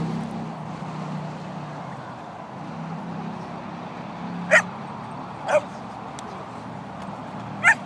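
Dogs in rough play, with three short, high yelps rising in pitch, about a second apart, then two seconds later.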